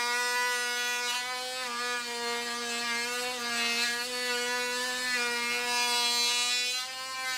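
Small corded handheld power tool running steadily with a high whine as it cuts into a plastic battery case, the pitch dipping slightly now and then as the cut loads it. It eases off near the end.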